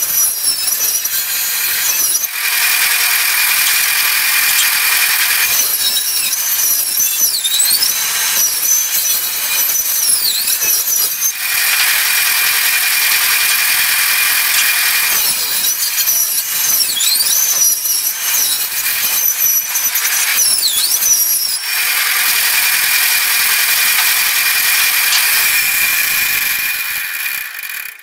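Table saw ripping a long wooden board along the fence: a steady, loud cutting noise with a high whine. Two stretches carry high squeals that swoop down and back up in pitch. The sound cuts off abruptly at the end.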